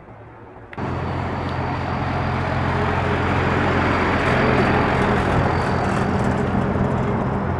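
Police pickup truck engine running steadily close by, a low even hum over outdoor street noise; it cuts in abruptly about a second in.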